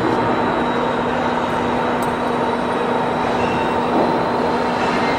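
Plasma cutting machine running: a steady hiss with a constant hum underneath.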